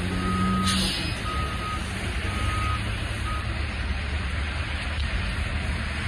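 City bus beeping at the stop: four steady high beeps about a second apart, the last one cut short, with a brief hiss near the start. The low rumble of the idling bus and street traffic runs underneath.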